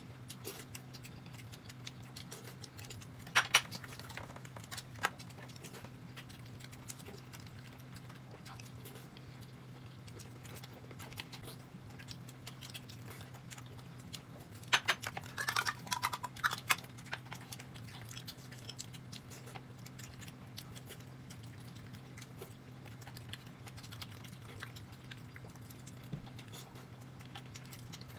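Quiet eating at a table: soft chewing of steamed buns and small clicks and clinks of tableware over a steady low hum. There are louder clatters about three and a half seconds in and again around fifteen to seventeen seconds in.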